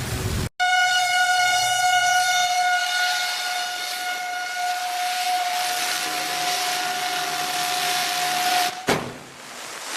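Outdoor tornado warning siren sounding one steady high tone with strong overtones. It starts abruptly about half a second in and cuts off suddenly near the end, giving way to a short stretch of noise.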